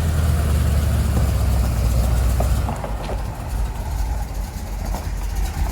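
1975 Chevrolet C10 truck engine running steadily, no longer backfiring now that the vacuum advance line is hooked back up; it gets a little quieter about three seconds in.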